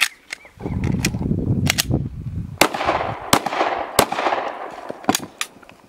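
Metal clicks of pistol parts being handled and fitted together, then several shots fired from a Glock 9mm pistol, each followed by a short echo.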